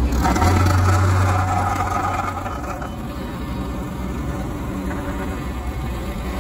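Diesel engine of a Sumitomo HA45W wheeled asphalt finisher running, heavier for the first couple of seconds with a strong low drone and a higher whine over it. It then settles to a steadier, slightly quieter run.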